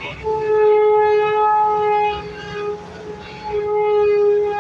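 A truck's air horn blows two long blasts at one steady pitch, the first about two and a half seconds long and the second starting about three and a half seconds in. A truck engine labours underneath on the climb.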